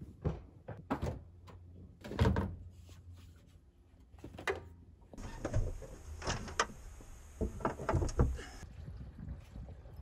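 A string of separate clunks and knocks from a car hood being opened and propped and from hands working in the engine bay. A steady hiss runs through the middle few seconds.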